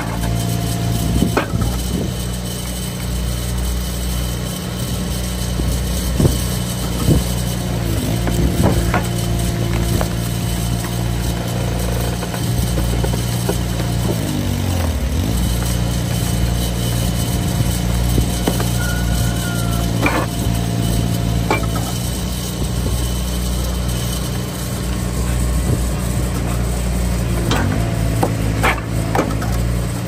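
Wood splitter engine running steadily, with scattered sharp knocks of wood. About halfway through, the engine note dips and recovers.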